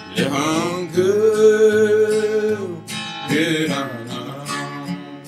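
Acoustic guitar strummed while a voice sings a slow song, holding one long note about a second in before starting the next phrase.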